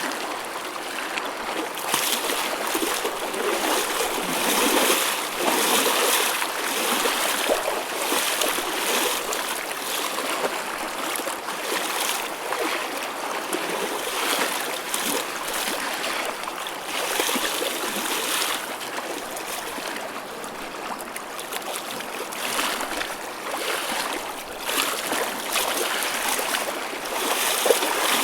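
Choppy ocean waves washing and splashing in a steady churn, swelling and easing every second or two.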